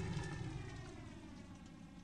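The fading tail of a synthesized logo-sting whoosh, dying away steadily with a slowly sweeping, hollow phaser-like tone.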